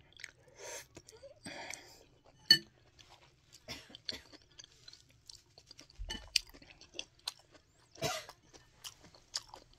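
Close-miked eating sounds: chewing and slurping a milky iced dessert with jelly and fruit, with wet mouth clicks and short noisy bursts of breath and sucking. A single sharp click about two and a half seconds in is the loudest sound.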